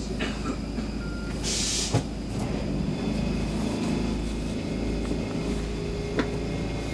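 Inside a Stockholm Metro C6 subway car standing still in a tunnel: the steady low hum of the train's equipment, with a short hiss about one and a half seconds in and a couple of faint clicks.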